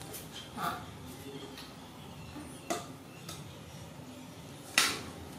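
A small plastic bottle handled by a young macaque and knocked against a concrete floor: a few light clicks and taps, the loudest near the end.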